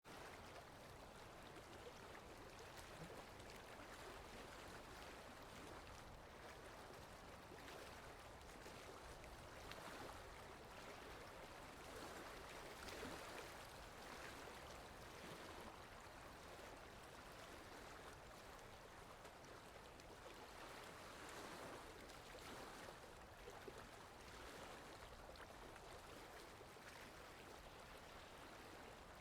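Faint water lapping with wind: a steady wash that swells gently every few seconds.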